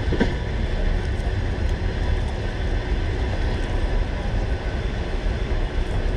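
Railway station platform ambience under a train shed: a steady low rumble with a hiss over it.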